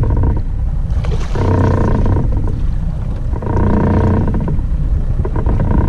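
90 hp Evinrude outboard motor running at low speed, a steady hum that swells twice.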